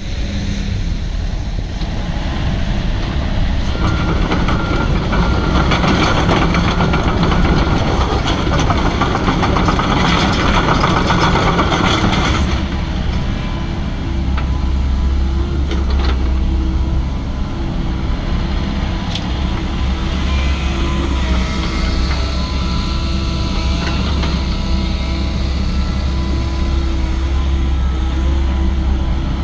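2015 Komatsu PC138US-10 hydraulic excavator's diesel engine running under hydraulic load: louder and rougher for about the first twelve seconds, then dropping suddenly to a steadier deep hum with thin steady tones over it as the upper structure swings.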